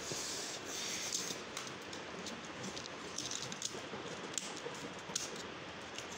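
Light, scattered clicks and taps of plastic keys and keyboard edges as hands press a new replacement keyboard down into an HP EliteBook laptop to seat it, with a brief rustling scrape near the start.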